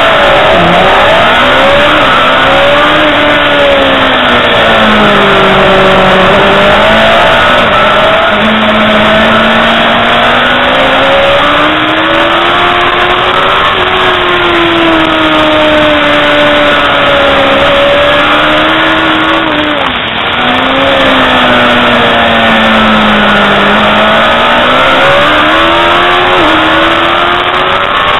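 Superbike engine heard onboard at race pace, its pitch climbing and dropping again and again as the rider accelerates, shifts and slows for corners, over a constant rush of wind noise.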